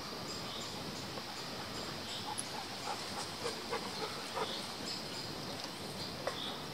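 Footsteps on a forest floor, with small irregular crackles of leaves and twigs underfoot, over a steady outdoor hiss with faint high chirps.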